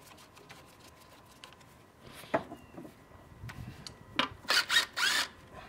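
Hand work with a flathead screwdriver on the worm-gear hose clamps of a turbo intercooler's rubber couplers. A sharp click comes about two seconds in, then scattered clicks and scraping, rubbing noises that are loudest near the end.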